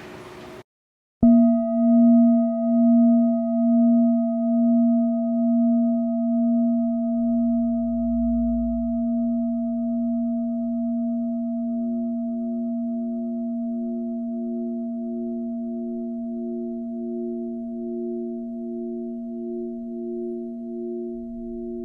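A sudden struck onset about a second in, then a low ringing tone with fainter higher overtones that rings on, wavering in loudness as it slowly fades. About halfway through, a second, higher tone joins, pulsing steadily.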